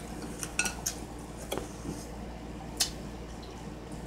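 Light clicks and clinks of tableware: chopsticks and a small glass soy-sauce dish being handled. There are about five short clicks spread over a few seconds, the sharpest near three seconds in.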